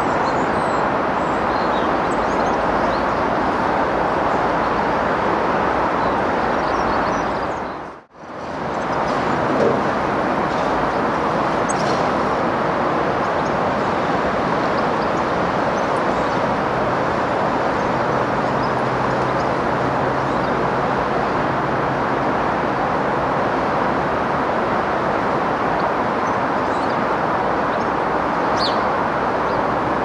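Steady roar of road traffic from a nearby motorway, with faint bird chirps now and then. The sound drops out for a moment about eight seconds in.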